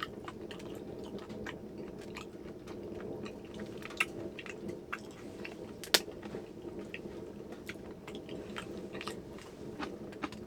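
A person chewing raw yellowtail sashimi dipped in sesame oil close to the microphone: moist chewing with many small crisp clicks, and one sharper click about six seconds in.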